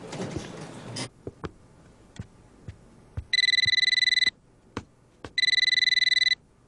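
Electronic telephone ringtone ringing twice, each ring a steady high trill about a second long, about a second apart: an incoming call left unanswered. Before the rings, busy room noise cuts off about a second in, and a few faint knocks follow.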